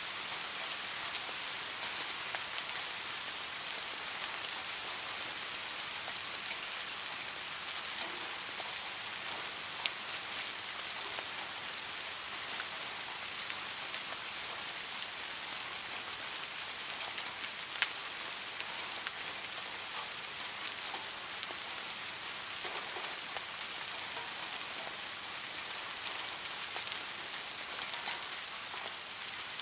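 Steady rain hissing on a surface, with scattered louder drop ticks, two sharper ones about ten and eighteen seconds in.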